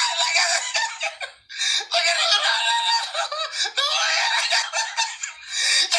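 Laughter and voices played back through a phone's small speaker, thin with no bass.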